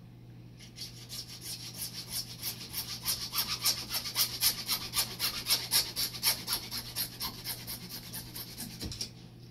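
Hacksaw cutting through PVC pipe: a rhythmic rasp of about three strokes a second that starts shortly after the beginning, is loudest in the middle, and stops just before the end.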